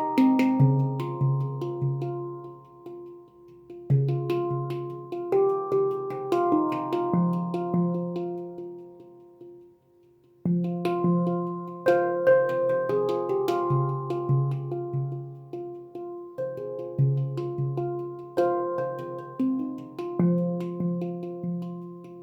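Handpan (a Leaf Sound Sculpture tuned to the F Voyager scale) played by hand: struck notes ring and overlap in melodic phrases over repeated low notes. About ten seconds in the ringing dies away almost to silence, then a new phrase starts.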